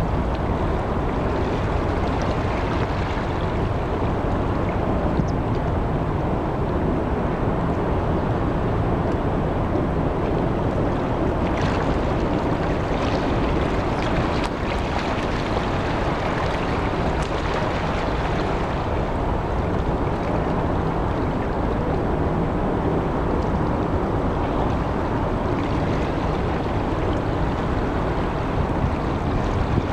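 Steady, loud rushing noise of wind buffeting the microphone by the harbour water, with a few faint clicks in the middle.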